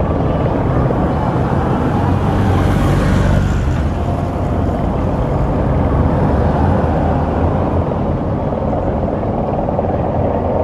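Vehicles passing close by at road level: a minivan and police motorcycles, their engine and tyre noise swelling about two to three seconds in, over a steady low rumble.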